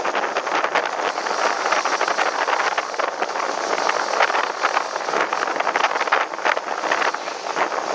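Wind buffeting the microphone over the rush of water and hull noise from a moving umpire motorboat, a steady noisy roar that swells and dips without a break.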